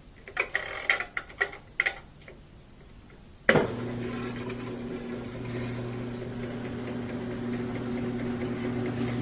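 Clicks as the Maytag washer's timer knob is turned to spin, then about three and a half seconds in the motor starts with a thunk and runs with a steady hum that slowly grows louder as the spin basket spins up and the drain pump clears the water. The washer spins and drains now that a sock jammed in its pump has been removed.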